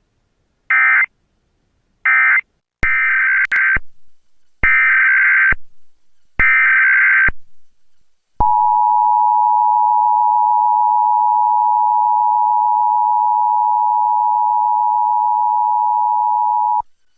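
Emergency Alert System tones. First the last two short SAME data bursts that end a message, then three longer SAME header data bursts of about a second each. Then the steady two-tone EAS attention signal (853 and 960 Hz), held for about eight seconds.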